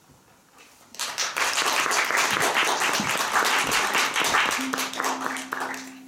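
Audience applauding, starting about a second in and fading near the end. A steady low held tone comes in near the end.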